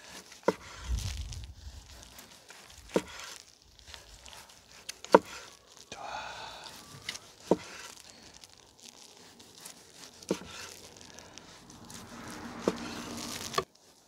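Kitchen knife cutting boiled pork shoulder on a cutting board, a sharp knock each time the blade meets the board, about every two to three seconds, with soft handling noise between the knocks.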